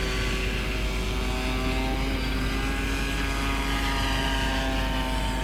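Electric brushless motor and propeller of an RC model plane running steadily in flight, a humming whine whose pitch drifts slightly, over rushing air noise.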